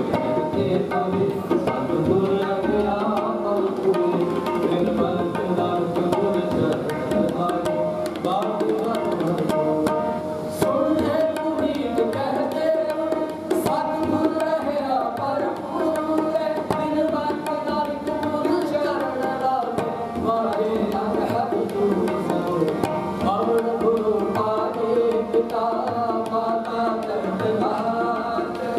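Sikh kirtan music: tabla playing steadily under the sustained melody of a harmonium.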